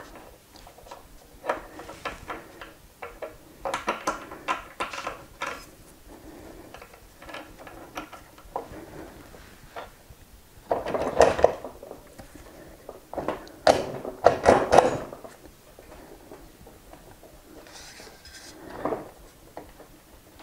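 Intermittent clicks, clinks and scrapes of metal parts being handled as an electric unicycle's pedal bracket is worked back over the hub motor axle and its shims, with the loudest clusters about halfway through.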